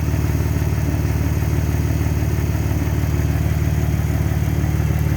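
2010 Dodge Journey's V6 engine idling steadily with an even, rapid pulse, run with the coolant reservoir cap off after a reservoir replacement so any trapped air can work out of the cooling system; no bubbling or misfire is heard to disturb the idle.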